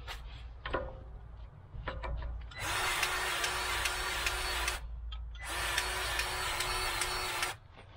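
Cordless grease gun motor running in two spells of about two seconds each, with a steady whir, as it pumps grease into a grease nipple on a field sprayer's frame. A few short clicks come before, as the coupler is fitted onto the nipple.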